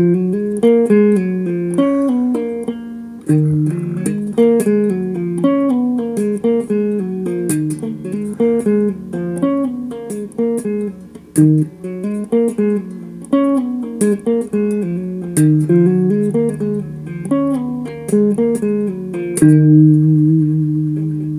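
Stratocaster-style electric guitar picked one note at a time: a lick in E around the 7th to 12th frets that climbs and falls across the strings and repeats in cycles of a few seconds. It settles on longer held low notes near the end.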